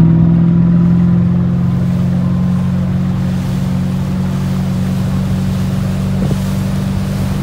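Motorboat engine held at high, steady revs after throttling up, pulling a water skier, with wind and water rush over it.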